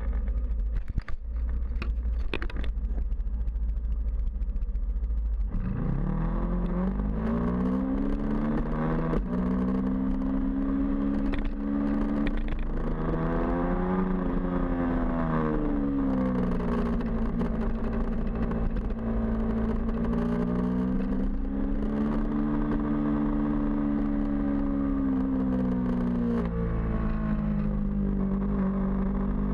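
A small engine running at speed, its pitch rising and falling in waves every few seconds, under a steady low wind rumble on the microphone. The engine comes in about five and a half seconds in, after a few light clicks.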